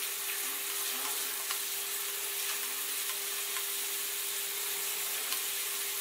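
Beef muthi kababs sizzling steadily in hot oil in a karahi, with a few faint clicks of a metal spoon as they are turned over. A steady low hum runs underneath.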